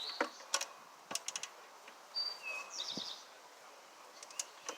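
Small birds chirping, with scattered sharp clicks and taps, including a quick run of three about a second in.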